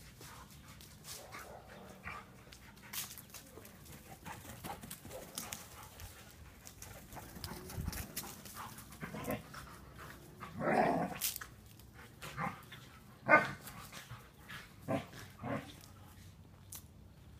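Two poodles, a standard and a miniature, playing rough, giving a few short barks and play noises among soft scuffling. There is one longer call a little past the middle, and the loudest, sharpest bark comes a couple of seconds later.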